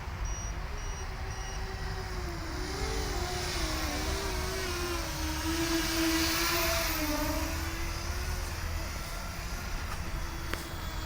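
FPV racing quadcopter on a 4S battery flying, its motors and propellers whining with a pitch that wavers up and down as the throttle changes. It grows louder toward the middle and then eases off. A couple of sharp clicks come near the end.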